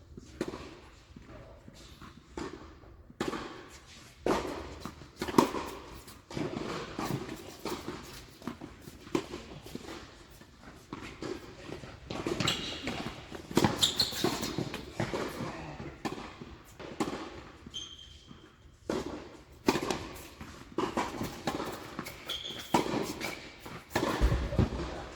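Tennis balls struck by rackets and bouncing on the court during play: a series of sharp, irregularly spaced pops, with footsteps and a few short high squeaks.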